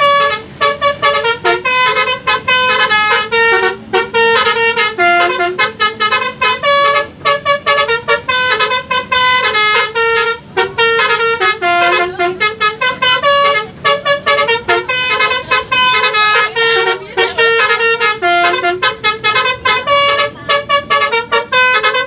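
A bus's 'telolet' multi-tone air horn playing a fast tune of short stepped notes, phrase after phrase with only brief gaps.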